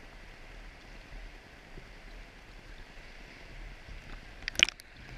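Shallow river water running over a stony bed, a steady hiss close to the microphone. About four and a half seconds in, a brief cluster of sharp knocks right at the microphone is the loudest sound.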